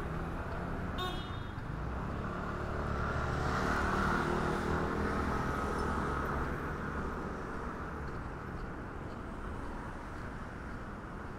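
City street traffic: steady road noise, with a vehicle passing and loudest about four seconds in. A short high chirp about a second in.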